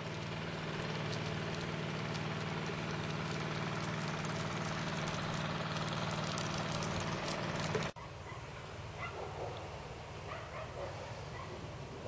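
An engine running steadily with a low hum and scattered light clicks, which cuts off abruptly about eight seconds in. After that there is quieter background with a few faint short sounds.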